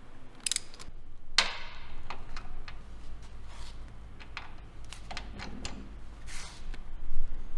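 Metallic clicks and knocks of a magnetic welding ground clamp and a wrench being handled on a steel welding table. One sharp, ringing clank comes about a second and a half in, followed by scattered lighter clicks.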